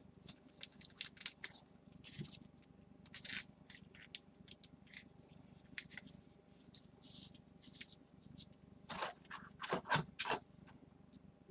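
Faint scrapes, rustles and light clicks of a trading card being handled with gloved hands, with a short run of louder scrapes about nine to ten and a half seconds in.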